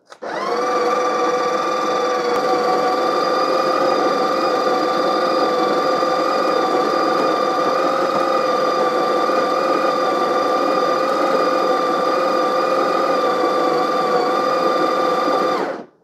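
Built-in conical burr grinder of a Breville Barista Express grinding coffee beans into the portafilter: a steady motor whine with several pitched tones over a grinding hiss. The pitch rises briefly as the motor spins up, and the sound cuts off suddenly just before the end.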